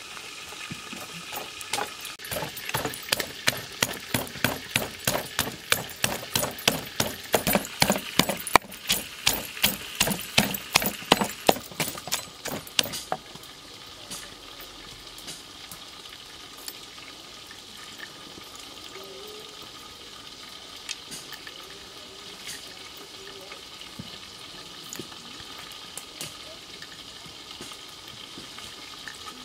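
A wooden pestle pounding chillies in a heavy wooden mortar: about two and a half sharp strikes a second for roughly ten seconds, then it stops. After that come only a few light, scattered taps.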